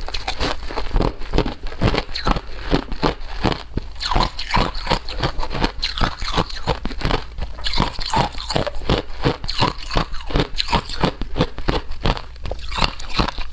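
Ice being bitten and chewed close to the microphone: a steady run of sharp, loud crunches, several a second.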